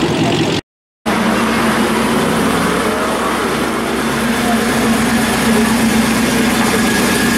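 Classic Ford pickup's engine running steadily at low speed as the truck rolls slowly past. The sound cuts out for about half a second near the start.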